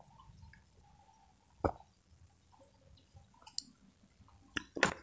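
A person drinking water from a glass: faint mouth sounds, a single sharp click a little under two seconds in, and a cluster of louder clicks and knocks near the end as the hand comes back down to the table.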